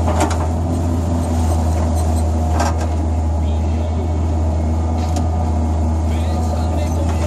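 Hydraulic excavator's diesel engine running steadily, heard from the cab, with a few short knocks as the boom and bucket work.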